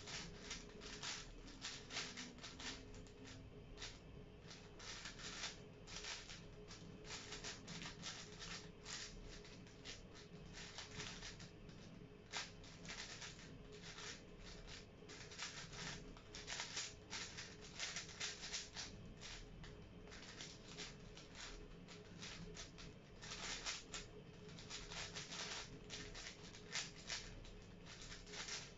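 Plastic 5x5 speed cube being turned fast in the hands: a continuous run of quick clicks and clacks as its layers turn.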